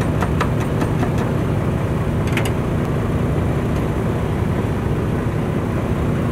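An engine idling steadily with a low, even hum. A few light clicks come in the first half second and one more about two and a half seconds in.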